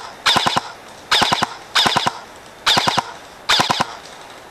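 Airsoft electric rifle (AEG) firing five short bursts of three or four rapid shots each, about one burst every three-quarters of a second.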